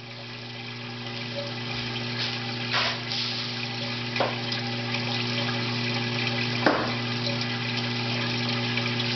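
Parts washer's electric solvent pump running with a steady hum, mineral spirits pouring from the hose-fed brush and splashing into the basin, growing louder over the first few seconds. A few short knocks are heard, at about three, four and seven seconds in.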